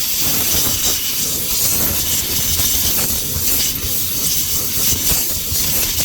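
Compressed-air blowgun giving a loud, steady hiss as it blows dirt off the fuel pump fittings.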